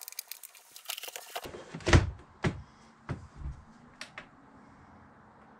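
Quick rattling clicks of wires and plastic connectors being handled, then one loud knock and several lighter knocks as a car-stereo-style head unit is pushed into its wooden cabinet opening.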